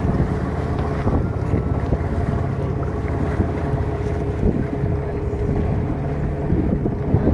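Wind buffeting the microphone over water rushing and splashing against the hull of a moving wooden boat, with a motor's steady drone underneath.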